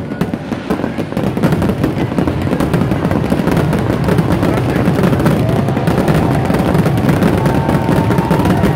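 Fireworks going off in a dense, rapid barrage of bangs and crackles that run together and grow louder, with a few faint whistles.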